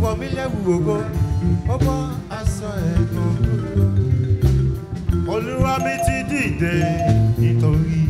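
Live church band playing a praise song: bass guitar, guitar and drums with a beat, and a choir singing in Yoruba over it.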